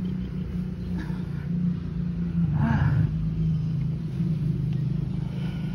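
A steady low engine hum, with a brief louder swell about two and a half seconds in.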